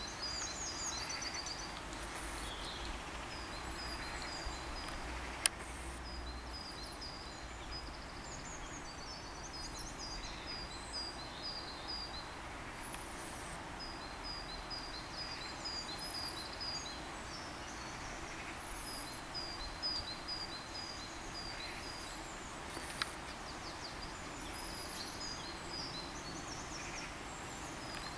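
Small songbirds singing: phrases of short, high notes repeated several times a second, over a steady outdoor background hum. A sharp click about five seconds in and another later on.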